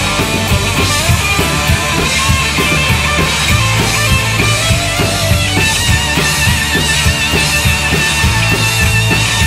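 Rock band recording: electric guitars over a drum kit keeping a steady beat. A held, wavering high note comes in a little past the middle.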